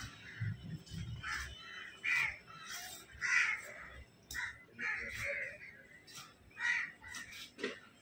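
Crows cawing over and over, short harsh calls about one a second, with a few dull knocks on the cutting table.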